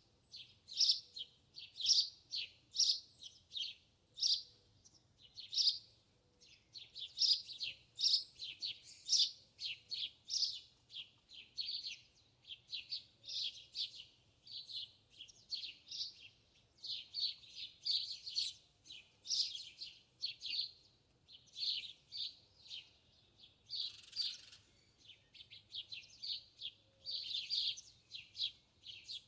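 Small birds chirping rapidly and continuously, short high chirps following one another several times a second. A brief rustling noise cuts in about three quarters of the way through.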